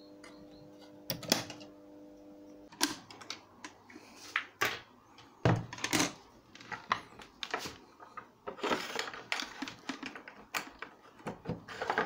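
Irregular clicks and knocks of old portable radios being handled and set down on a wooden table. A faint steady hum fades out about three seconds in.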